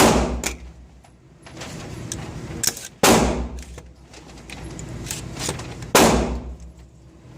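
Three gunshots fired at an even pace, about three seconds apart, each a sharp crack with a short ringing tail, with fainter shots between them.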